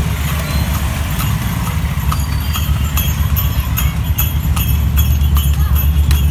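A horse's hooves clip-clopping on the road in a steady rhythm as it pulls a horse cart, over a steady low rumble.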